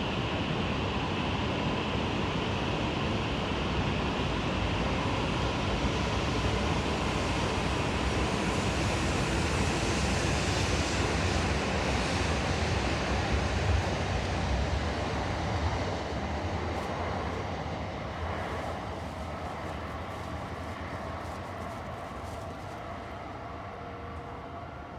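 Tohoku Shinkansen bullet train running through the station: a steady rushing rumble that grows to its loudest about halfway through, then fades away over the last several seconds.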